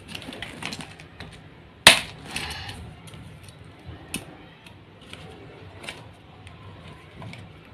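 Metal rings of a six-ring planner binder snapped open with one sharp click about two seconds in, then a few lighter clicks and handling noise as a pink chain charm is hooked onto the rings.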